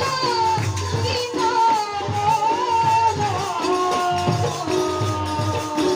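A woman singing an Assamese devotional naam in a long, gliding melodic line, accompanied by a regular drum beat and rattling, jingling percussion.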